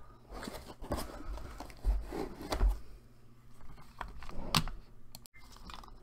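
Cardboard box and packing paper being handled: irregular rustling and crinkling with a few louder scrapes and soft knocks, the loudest about two seconds in, again half a second later, and near the end.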